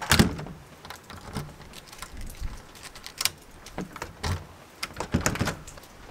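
Metal clicks and knocks of an exterior door's thumb-latch handle being wiped and worked, with the door rattling. The sharpest click comes right at the start, and there is a cluster of knocks near the end.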